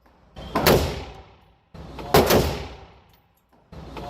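Tavor X95 bullpup rifle firing single shots about a second and a half apart, each crack ringing out and fading over about a second. A third shot comes near the end.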